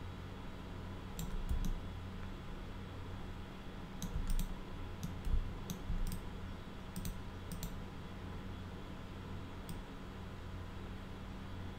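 Scattered computer mouse and keyboard clicks, about a dozen spread unevenly, over a steady low hum.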